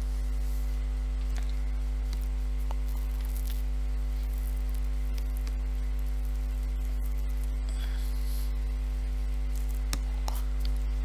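Steady electrical mains hum picked up by the recording microphone, a low buzz with a ladder of evenly spaced overtones. A faint click sounds about ten seconds in.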